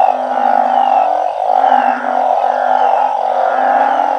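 A chorus of male truncate-snouted burrowing frogs (Glyphoglossus molossus) calling. Low drawn-out calls of about a second each follow one after another over a dense, steady din of many calling frogs, with short falling chirps above.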